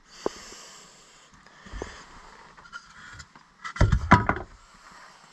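Footsteps on old wooden floorboards: a few separate knocks and thumps, then a short loud cluster of steps about four seconds in.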